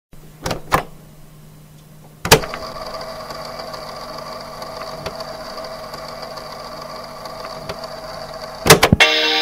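Cassette deck being started: two light clicks, then a loud clunk about two seconds in as the play key goes down, followed by steady tape hiss with a faint motor hum, and a quick run of clicks near the end just before the music comes in.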